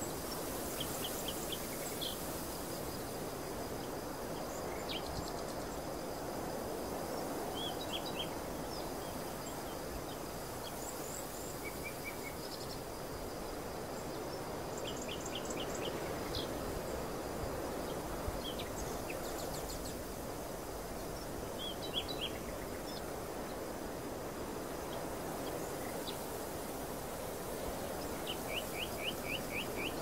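Outdoor ambience of an open barley field: a steady hiss, with small birds chirping every few seconds in short, quick trills, the longest near the end.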